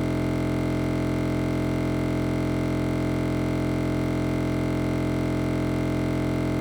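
A steady, unchanging electronic drone of several held tones at once, with no variation at all, cutting off abruptly just after it ends.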